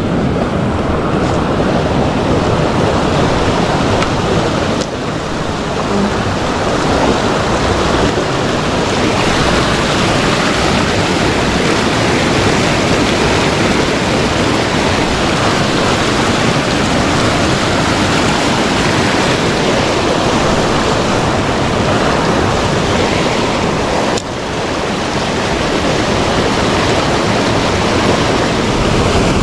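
Fast-flowing, muddy river water rushing over shallow rapids close by: a loud, steady rush. It drops briefly twice, about five and twenty-four seconds in.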